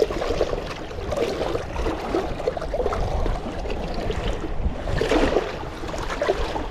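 Choppy lake water lapping and splashing against a rocky shore, with wind rumbling on the microphone.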